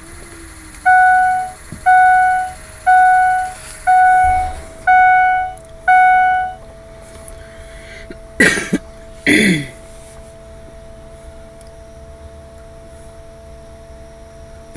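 Truck dashboard warning chime sounding six times, about once a second, then two coughs. A faint steady tone follows.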